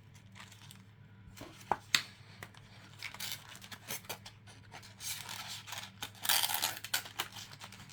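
Small plastic and paper pieces of a press-on nail kit being handled and packed back into their box: scattered clicks and taps with bursts of rustling packaging, the loudest near the end.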